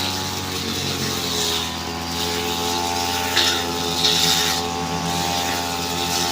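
Brush cutter engine running steadily at high speed, with several short swishes as the blade cuts through thick undergrowth.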